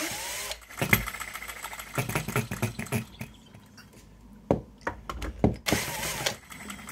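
OKMO RETROL B01 miniature 'Monitor' ball-top hit-and-miss petrol engine being spun over in a start attempt: a whirring spin at the start and again near the end, with irregular clicks and clatter between. The needle valve is set three-quarters of a turn out, a setting at which it will not keep running.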